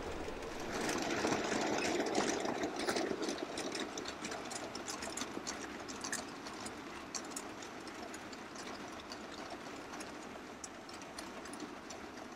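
Model goods train running along the track: a steady running noise with many light clicks of wheels on the rails, loudest in the first few seconds and then easing off as the wagons roll past.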